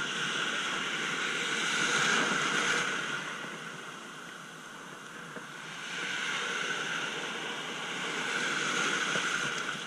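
Sea water washing around the shallows with wind on the microphone: a steady rushing hiss that swells about two seconds in, eases off in the middle and swells again from about six seconds in.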